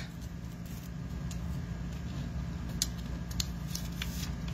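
A steady low hum, with a few faint, short paper rustles and taps as cut paper mask strips are lifted and moved across a sheet of cardstock.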